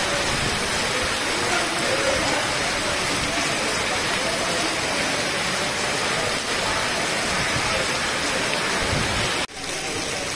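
Heavy rain falling steadily. A short drop near the end is followed by slightly softer rain.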